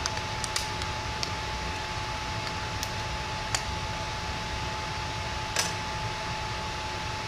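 Steady background hiss with a faint steady whine. Over it come scattered light clicks and taps, several in the first second and single ones about three and a half and five and a half seconds in.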